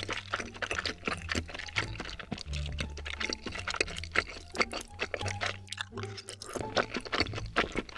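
Close-up mouth sounds of slurping and chewing noodles and stretchy melted cheese from cheese-topped tteokbokki: many wet smacks and clicks in quick succession. Background music with low bass notes plays underneath.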